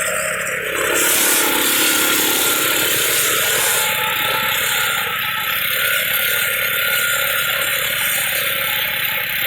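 A rototiller running steadily, a dense mechanical whirring noise that gets louder about a second in and then holds.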